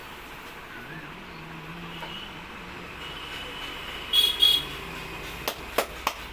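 Steady street background noise. About four seconds in come two short, shrill, high-pitched blasts, the loudest sound here. Near the end, three sharp cracks follow in quick succession, about a third of a second apart.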